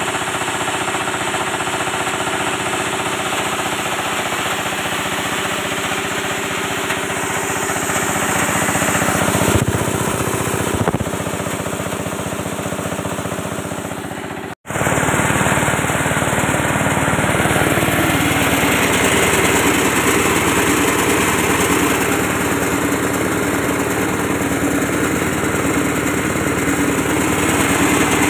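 8.5 hp single-cylinder diesel engine running a multipurpose chopper-grinder under load, a loud steady engine beat mixed with the grinding of material through the mill. The sound breaks off for an instant about halfway through and then carries on.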